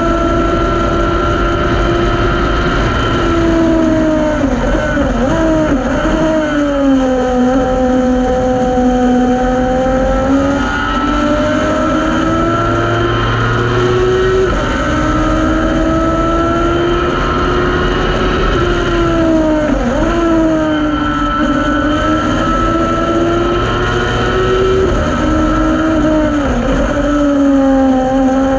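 Thunder Roadster race car's engine heard from inside its open cockpit, pulling hard with its pitch climbing slowly on each straight and dropping sharply several times as the driver brakes and downshifts for corners. A steady rush of wind and road noise lies underneath.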